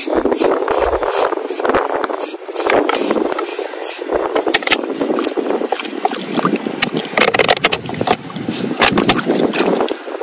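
Water splashing and sloshing, broken by many irregular sharp clicks and splats.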